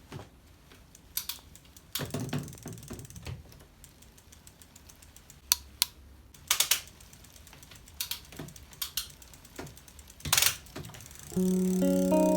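Irregular sharp clicks and knocks of small hard parts being handled, a dozen or so spread out with quiet gaps between them. Plucked-guitar music begins about a second before the end.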